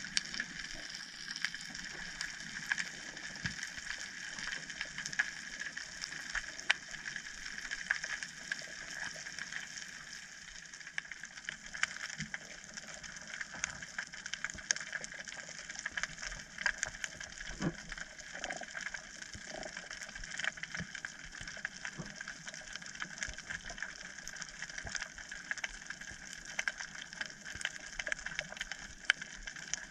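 Underwater reef ambience picked up by a camera below the surface: a steady hiss with dense, irregular crackling clicks, the crackle typical of snapping shrimp on a coral reef.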